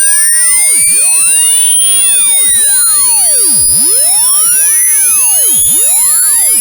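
Hearing-test sine-wave sweep: a single pure, high-pitched electronic tone, steady in loudness and slowly rising in pitch.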